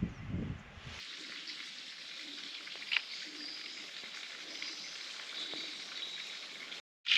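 Forest ambience: an even hiss with a few faint chirps, and a sharp tick about three seconds in. A low rumble ends with a cut about a second in.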